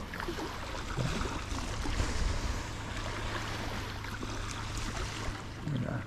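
Outboard motor on a small aluminium boat idling steadily, a low hum, over a hiss of wind and lapping water.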